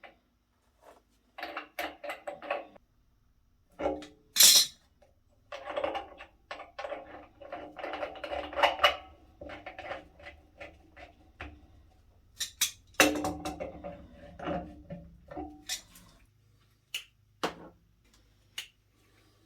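Metal parts and tools knocking and clanking irregularly, several strikes ringing on, with a short harsh burst of noise about four and a half seconds in.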